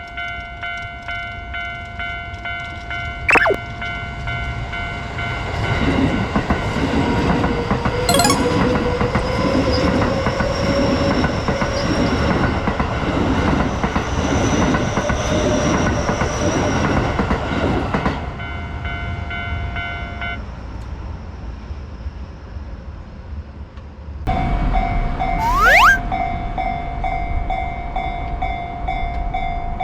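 Railway level-crossing warning bell ringing steadily while a train passes over the crossing, its wheels clattering in a steady rhythm for about twelve seconds. The bell stops about two-thirds of the way through, and a few seconds later a second crossing bell starts up with a low rumble and a short rising tone.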